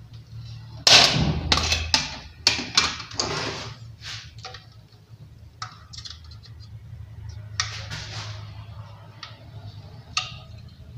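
A plastic switch-and-socket plate being handled and pressed against a wall, with a run of loud scrapes and clacks in the first few seconds, then a screwdriver driving its mounting screw with scattered small scrapes and clicks, over a low steady hum.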